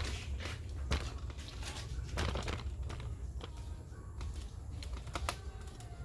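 Plastic car accessory being handled and pushed into place against the car body: irregular clicks, taps and crinkling rustles over a low steady hum.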